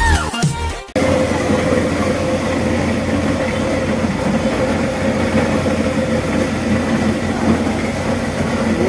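Electronic music ends abruptly about a second in. Then electric grinding mills run steadily, a loud even mechanical din with a constant whine.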